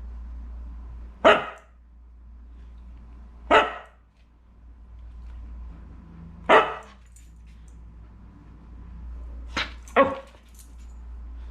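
Dog barking: about five short single barks a couple of seconds apart, the last two close together.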